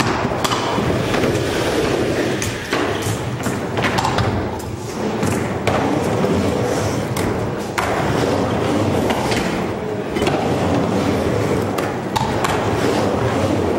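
Skateboard and scooter wheels rolling around a wooden skatepark bowl: a steady rumble broken by several sharp thuds and clacks of landings and decks striking the ramp.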